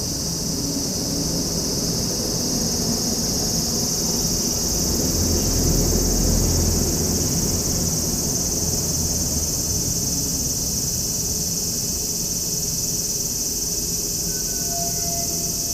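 A steady, high-pitched chorus of insects chirring without a break, with a low rumble that swells and fades around the middle.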